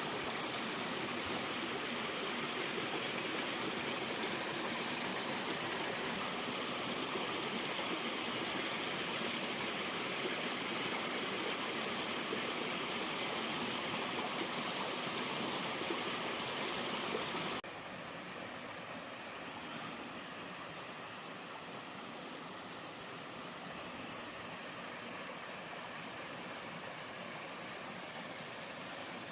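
Mountain stream and waterfall rushing steadily. A little over halfway through it cuts abruptly to a quieter, softer rush of water.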